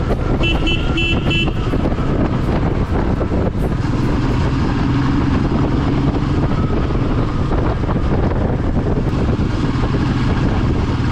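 Motorcycle running on the road with heavy wind and road noise, its engine hum growing steadier after a few seconds. About half a second in, a horn gives a quick run of about four short beeps.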